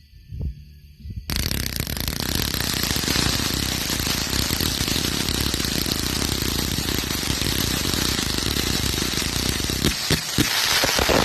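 Consumer firework going off about a second in: a dense, continuous rapid crackle of small reports that holds steady, with a few heavier pops near the end.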